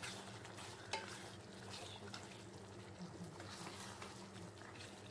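Wooden spoon stirring fried beef pieces through thick, simmering masala in a steel pot: faint scraping strokes over a light sizzle.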